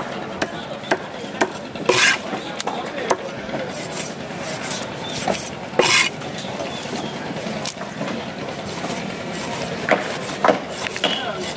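Large curved machete-style knife cutting fish on a wooden chopping block: the blade scrapes and taps through the flesh, with a few sharp chops against the block, the loudest about two and six seconds in and two more near the end.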